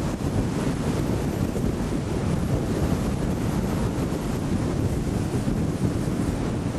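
Steady rumble of wind and road noise from a moving car, heard from inside the car, with no breaks or changes.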